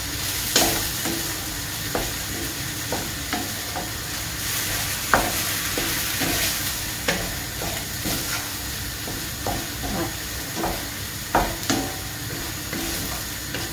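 Ground beef and grated cheese sizzling in a stainless steel frying pan while a wooden spatula stirs them, with irregular knocks and scrapes of the spatula against the pan.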